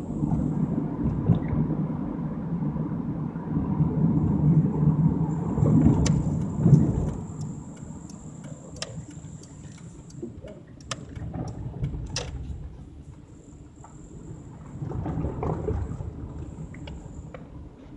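Car driving slowly on a residential street, heard from inside the cabin: a heavy low rumble of road and engine noise for the first seven seconds, then quieter, with scattered sharp clicks and rattles.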